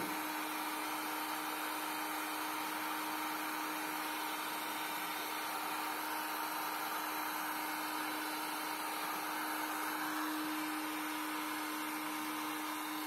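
Electric heat gun running steadily, its fan blowing hot air with a steady hum to shrink clear heat-shrink film around a battery pack.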